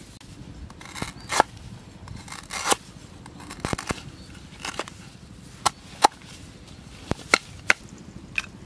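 Cleaver chopping on a wooden cutting board: about a dozen sharp knocks at irregular intervals.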